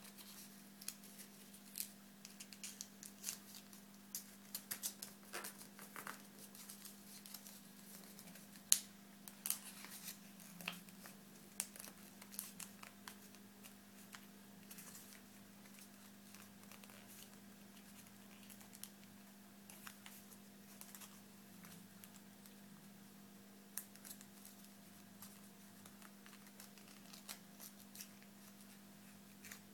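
Origami paper being folded and creased by hand: irregular soft crinkles and snaps, busiest in the first half and sparser later, over a steady low hum.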